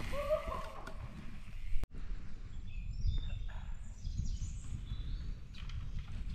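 Woodland ambience: a steady low rumble with small birds chirping a few seconds in. The sound cuts out for an instant about two seconds in.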